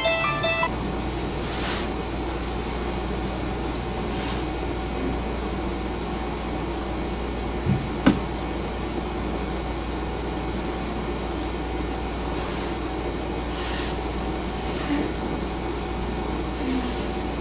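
Steady indoor room hum, like an air conditioner or fan running, with a few faint soft knocks and one sharp click about eight seconds in.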